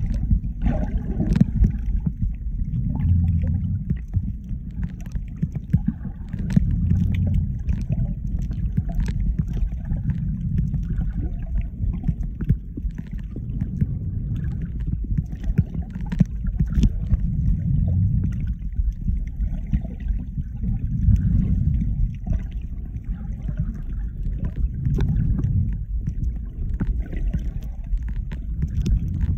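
Muffled underwater sound on an iPhone 12 Pro microphone held below the surface while swimming: a low churning rumble of water moving against the phone, swelling and easing every few seconds, with scattered faint clicks.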